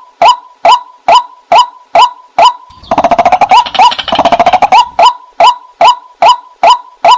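White-breasted waterhen calling: a short, harsh note repeated steadily about twice a second. About three seconds in, a fast run of chattering notes lasts about two seconds before the steady calling resumes.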